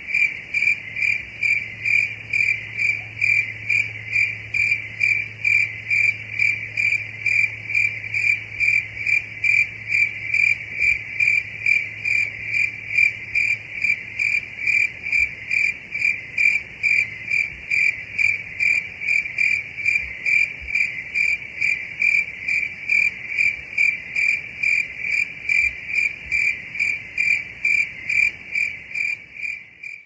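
A cricket chirping steadily, an even run of about two high-pitched pulsed chirps a second on one unchanging pitch, fading out at the very end.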